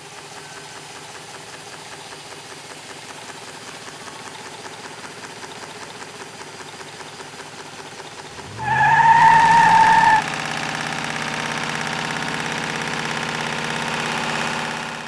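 Homemade six-cylinder Stirling engine running with a faint, fast, even ticking. About eight and a half seconds in, a much louder motor-like whir starts suddenly and rises in pitch, with a high whine for about a second and a half, then settles to a steady hum that fades out at the end.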